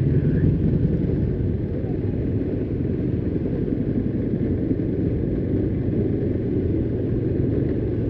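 Motorcycle engine running steadily at low speed, heard from on board the bike.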